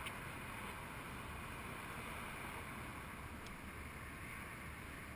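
Faint, steady outdoor background noise at the water's edge: an even hiss with no distinct events in it.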